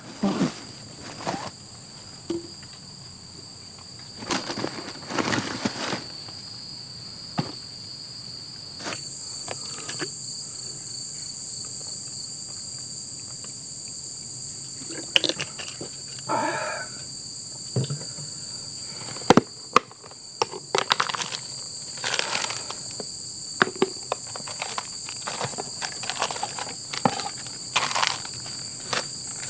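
Insects chirring steadily in two high, thin tones, louder from about nine seconds in, with scattered clicks, knocks and rustles close by throughout and a brief pitched call around the middle.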